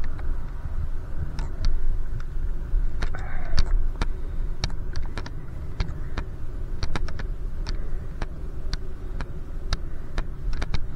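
Wind and road rumble from a bicycle ride, steady and low, with irregular sharp clicks and ticks throughout.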